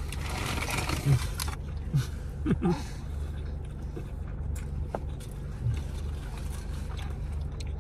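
Steady low hum of a car's idling engine, with a few short soft sounds of people eating.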